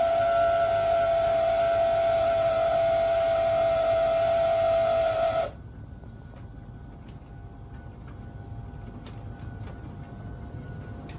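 Beko DSX83410W condenser tumble dryer's condensate pump, the source of the loud noise at the condensing tank, running with a loud steady whine that cuts off suddenly about five seconds in. A much quieter steady hum carries on afterwards, with a few light ticks.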